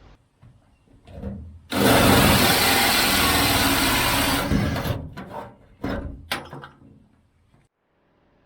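A power tool runs for about three seconds, starting and stopping abruptly, followed by a few sharp clicks and knocks.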